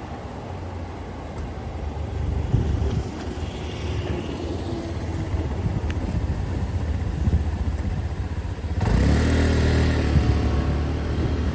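Passing vehicles rumbling, growing louder after about two seconds, then a sudden louder passage with a hiss and a low hum about nine seconds in.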